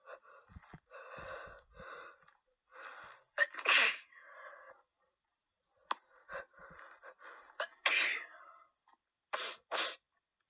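A woman with a cold sneezing repeatedly: catching breaths build to a loud sneeze a little over three seconds in, another one about eight seconds in, then two quick sneezes close together near the end.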